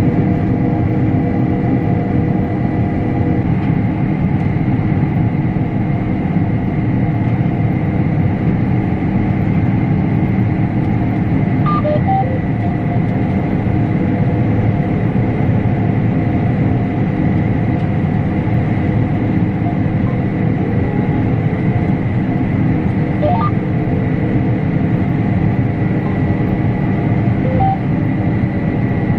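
Combine harvester running steadily while cutting wheat: a constant machinery drone with a high whine, and a few faint short tones about twelve and twenty-three seconds in.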